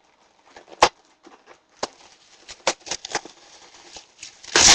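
Packaging of a boxed airsoft gun being handled and worked loose: irregular knocks, taps and rustles, with a sharp knock about a second in and a louder burst of rustling and scraping near the end.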